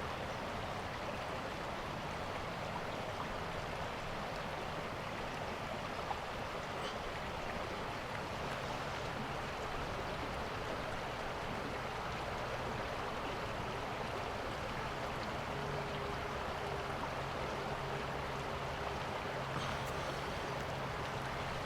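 Steady outdoor ambient noise, an even hiss. A faint low hum joins about eight seconds in.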